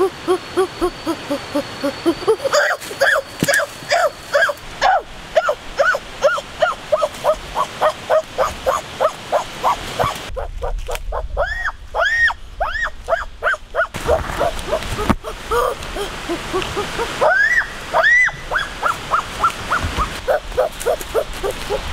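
A long, rapid run of short yelping calls, about three or four a second, each rising and falling in pitch. A few louder, higher and longer calls come near the middle and again about three quarters of the way through.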